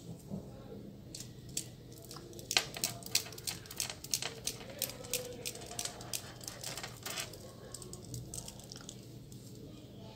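Kuka-nut (coquilla nut) prayer beads clicking against one another as fingers slide them along the cord: an irregular run of sharp small clicks starting about a second in, thickest in the middle and dying away after about seven seconds.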